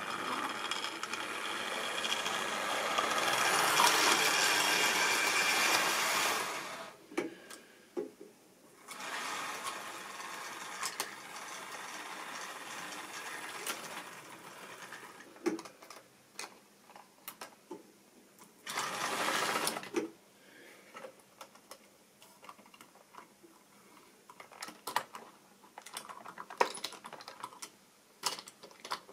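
Model railway locomotive running on the track, its small electric motor and wheels whirring steadily, loudest for the first seven seconds, with shorter runs later and then scattered clicks and knocks near the end as a locomotive is handled on the rails.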